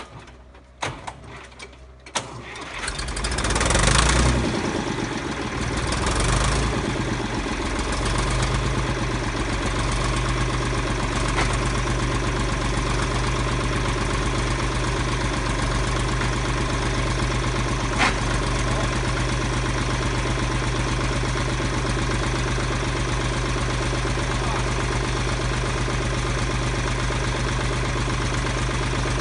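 Vintage Valmet tractor engine, started for its once-a-year run. After a few knocks it cranks and catches about three seconds in, runs up loudly, then settles into a steady idle with one sharp click midway.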